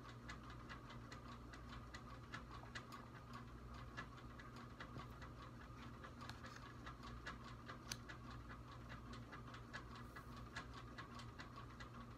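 Faint, steady ticking of a clock, evenly spaced, over a low steady room hum.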